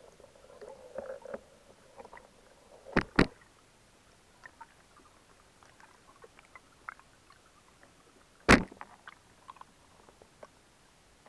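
Sharp knocks and small clicks picked up underwater from a spearfisher's speargun and camera rig: two knocks close together about three seconds in and a louder single knock past eight seconds, with a faint low murmur at the start.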